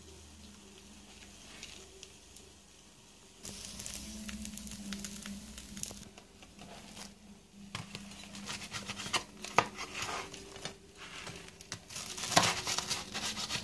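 Crisp toasted sandwich bread crackling and crunching as it is handled and then cut through with a knife on a plastic board, with sharp ticks and taps. It starts a few seconds in.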